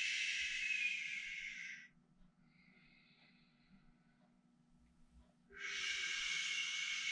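A man breathing out hard through the teeth with a long hissing "shhh", the qigong healing sound for anger. It cuts off about two seconds in and a faint breath in follows. A second long "shhh" starts about five and a half seconds in.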